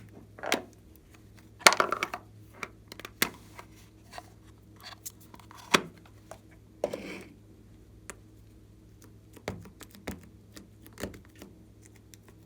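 Glossy slime being worked by hand, with irregular sharp clicks, pops and short crackly squelches, the busiest burst about two seconds in.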